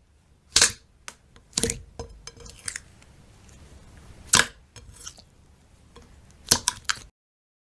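A series of separate sharp clicks and clinks, about seven spread over several seconds, with a faint hiss between them; the sound cuts off suddenly about seven seconds in.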